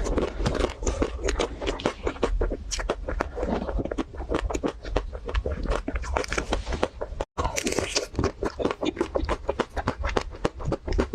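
Close-miked biting and chewing of a chocolate-coated Magnum ice cream bar, its hard chocolate shell cracking in many quick, crackling crunches. The sound cuts out completely for a moment about seven seconds in.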